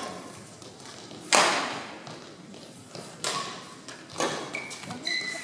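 Badminton rally: three sharp racket strikes on a shuttlecock about a second apart, the first the loudest, each echoing through the sports hall, with brief rubber shoe squeaks on the court floor near the end.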